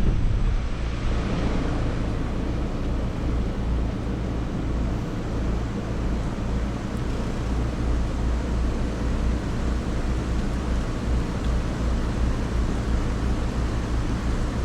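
Carrier Infinity 27VNA0 heat pump outdoor unit running in heat mode: a steady low compressor hum under the whoosh of its condenser fan.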